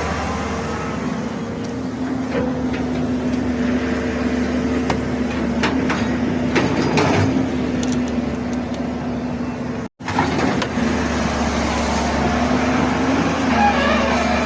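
Long-boom excavator's diesel engine running steadily at working speed, with a few short knocks and clanks from the machine. The sound drops out for a moment about ten seconds in.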